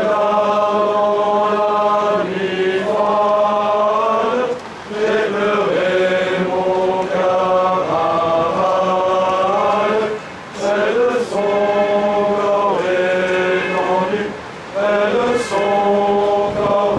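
Voices singing a slow chant in long, held phrases, with short breaths between phrases.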